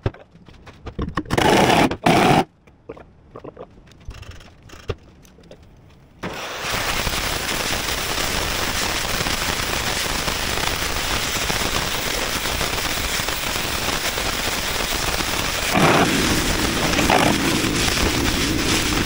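Gas cutting/heating torch (oxy-fuel) flame hissing steadily, heating a spot of the bent bucket steel red-hot to straighten it. The hiss sets in about six seconds in, after a few brief, louder sounds.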